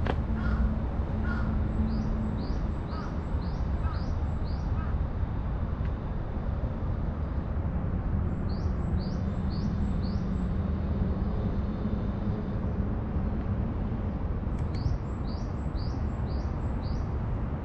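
Wild birds calling: a songbird gives three runs of about six quick high notes, two a second, and crows caw in the first few seconds. Under them runs a steady low background rumble.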